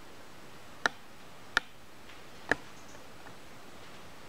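Three sharp, separate clicks a little under a second apart, from a cat's claws on a tiled floor as it walks.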